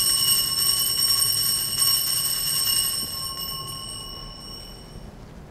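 Altar bell rung at the elevation of the consecrated host: one steady ringing tone with several high overtones, dying away about five seconds in.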